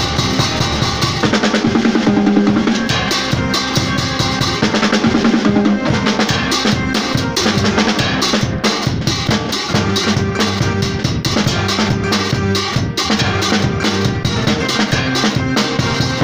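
Live electronic keyboard and acoustic drum kit playing an instrumental gospel church groove together: keyboard chords and low bass notes over steady, busy drumming with snare, bass drum and cymbal hits.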